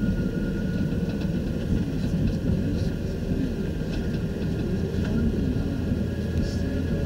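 Game-drive vehicle's engine running with a steady low rumble as it drives, with a faint steady high whine above it.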